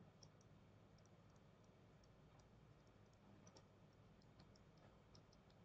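Near silence: faint room tone with scattered soft, irregular clicks.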